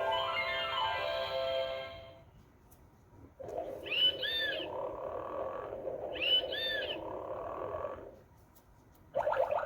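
Sound-book button effects through a small speaker. First a shimmering chime run with a falling sweep. Then a sustained tone with two chirping animal calls, about two seconds apart. Near the end a rapid pulsing sound starts.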